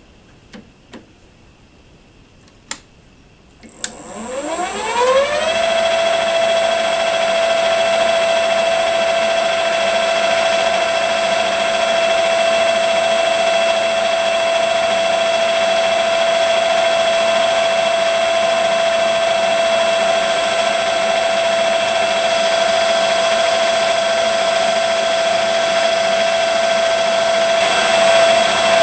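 Variable-frequency-drive lathe motor ramping up in a rising whine about four seconds in, then running at a steady speed with a steady whine and a high thin tone, while a turning tool cuts down a steel tee-bolt blank held in a collet chuck. A few light clicks come before the start.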